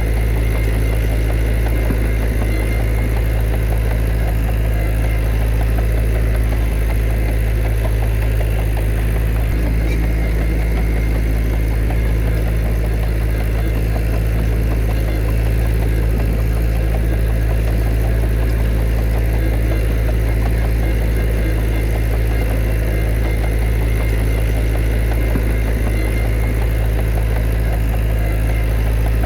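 Heavy diesel engine of earthmoving machinery running steadily, a constant low hum with no clear change in revs.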